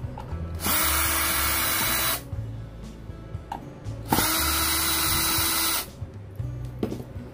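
Bosch cordless drill-driver running in two bursts of about one and a half seconds each, backing screws out of a monitor's metal back shield.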